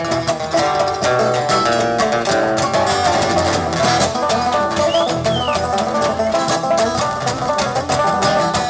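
A live bluegrass-style string band playing an instrumental: acoustic guitar, mandolin and banjo picking over upright bass and a drum kit keeping a steady beat.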